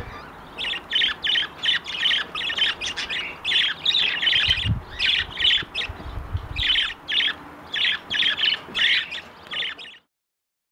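Budgerigars giving rapid, harsh squawking chirps, several a second, with a couple of dull low bumps in the middle. The calls cut off abruptly near the end.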